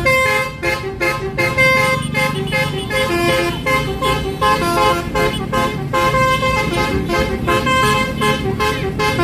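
Indonesian bus 'telolet' horn, a multi-tone air horn playing a quick melody of stepping notes, with the bus engine running underneath.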